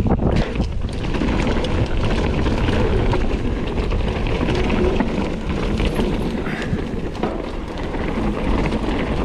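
Kona Process 153 mountain bike rolling fast down a dirt singletrack: knobby tyres on dirt with a steady rush and a constant clatter of chain and frame rattling over bumps.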